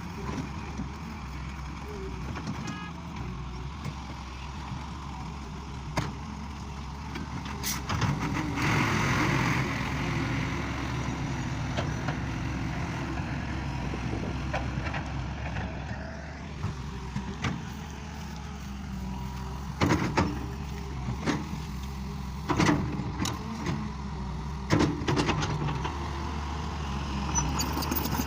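Excavator's diesel engine running steadily, with a stretch of louder working noise and several sharp knocks and clanks of the machine at work, most of them in the second half.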